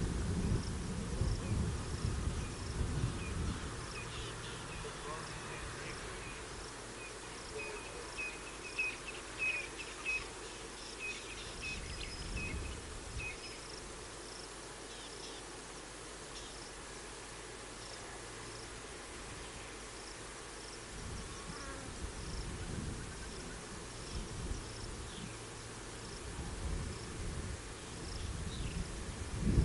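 Crickets and other insects chirping in the bush, a faint high chirp repeated at an even pace, with a run of quicker short chirps in the first half. Low rumbling of distant thunder at the start and again near the end.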